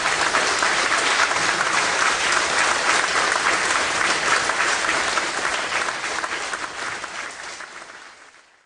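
Audience applauding, a dense steady clapping that fades out over the last two seconds or so.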